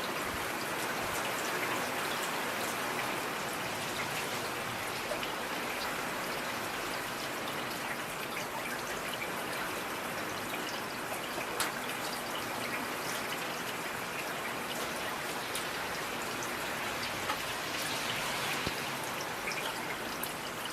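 Steady rain falling, with scattered individual drops standing out as sharp clicks, the sharpest about halfway through.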